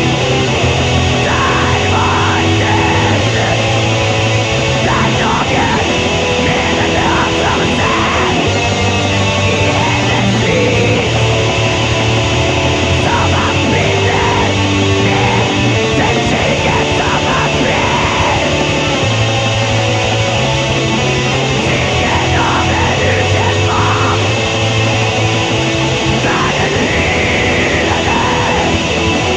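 Raw black metal: a dense wall of distorted electric guitars and drums at a steady loud level, with a raw, lo-fi production.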